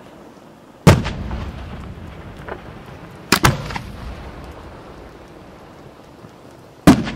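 Aerial firework shells launched from mortar tubes: three sharp booms as the lift charges fire, about a second in, near the middle (a quick double) and near the end, each followed by a short ringing tail.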